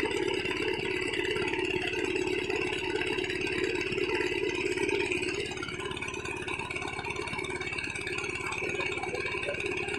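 Small engine running steadily at an even speed, with a rattle.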